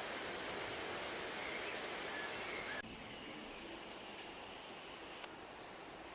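Steady rushing wind noise that cuts off abruptly about three seconds in, leaving a quieter hiss with a few short, high bird chirps.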